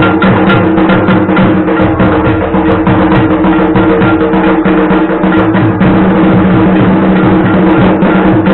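Loud, fast drumming with dense rapid strokes and many short falling bass thumps, typical of dhak drums played during Bengali puja worship. A steady droning tone runs underneath.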